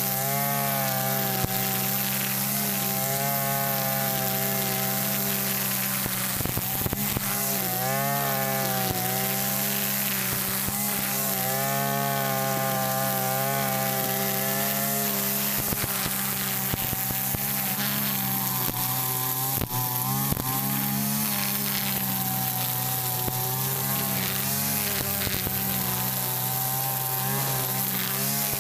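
Mitsubishi backpack brush cutter's two-stroke engine running steadily while its nylon string head cuts grass, the engine note wavering slightly as the line loads up in the grass. A few sharp clicks.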